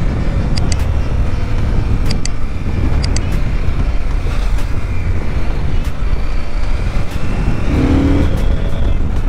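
CFMOTO 800MT Touring motorcycle being ridden, its 799 cc parallel-twin engine running with a steady low rush of wind noise on the microphone. A few short paired clicks come in the first three seconds.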